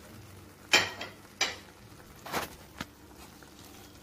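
Wooden spoon stirring watery masala gravy in a pot: three or four short scrapes and splashes, the loudest about a second in.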